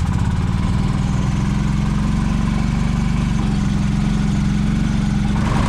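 A vehicle engine running steadily at an unchanging pitch, starting and stopping abruptly.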